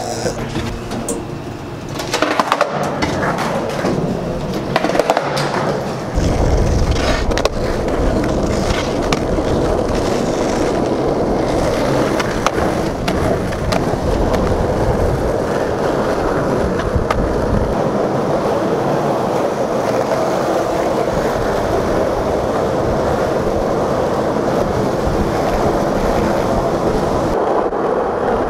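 Skateboard wheels rolling on concrete, with sharp clacks of the board during the first several seconds, then a long steady roll down a parking-garage ramp.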